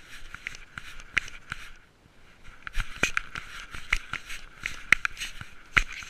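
Irregular crackling and sharp clicks of a cat moving through dry grass, twigs and dead leaves, picked up very close by a camera worn on the cat, with a brief lull about two seconds in.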